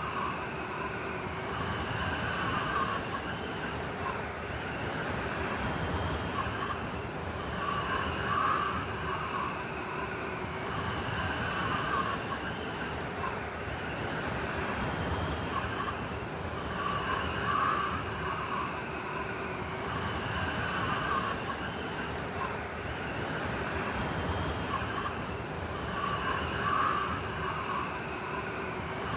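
Blizzard wind blowing steadily and howling, with gusts that swell about every nine seconds.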